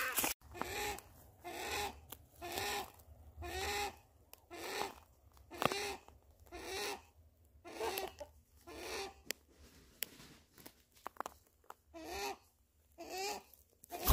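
An animal calling over and over: short calls that rise and fall in pitch, about one a second.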